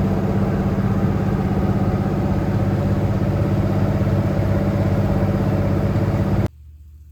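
A motor engine running steadily at an even pitch. It cuts off abruptly near the end, leaving a much quieter low hum.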